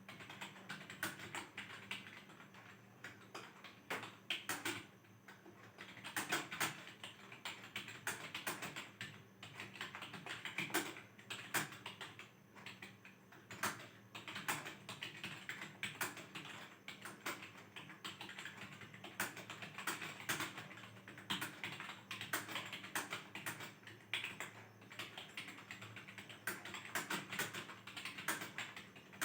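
Fast, continuous typing on a computer keyboard: a dense, uneven stream of key clicks, several a second, with brief slight lulls, during a timed typing speed test.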